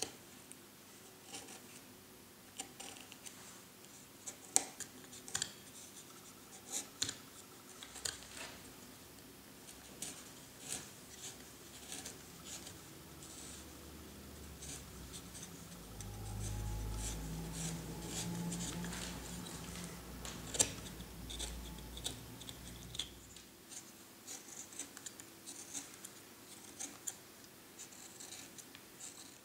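Hand carving gouge paring limewood: short crisp cuts and scrapes of the blade through the wood, scattered and irregular, a few a second at times. A low hum comes in about halfway through and stops several seconds later.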